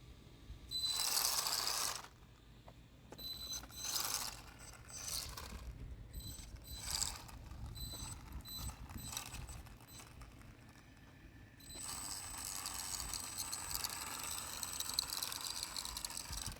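Small homemade RC car's two electric motors whining as it drives, with a mechanical rattle from the drivetrain. There are several short bursts in the first seven seconds, then a steadier run from about twelve seconds in.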